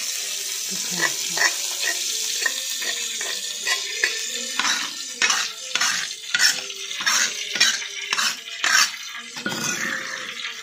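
Metal spatula scraping ground spice paste around and out of a stone mortar: a run of short scrapes and clinks of metal on stone, quickest and loudest in the middle stretch.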